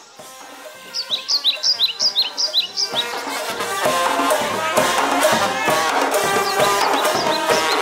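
Music: a run of short, high, rising chirps, then from about three seconds in a loud band with drums and brass playing to a steady beat.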